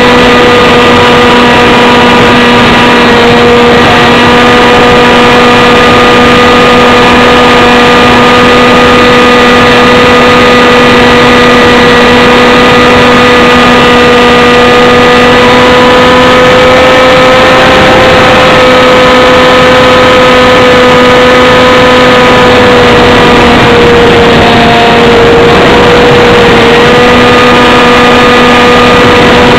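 Model airplane's motor and propeller running steadily, very loud and close to an onboard camera: a constant droning tone. The pitch rises slightly about 17 seconds in and dips briefly around 25 seconds in.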